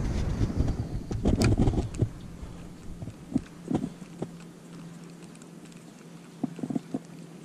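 Muffled rumble of wind and body movement against a chest-mounted action camera, strongest in the first two seconds, followed by a few light scattered clicks and taps.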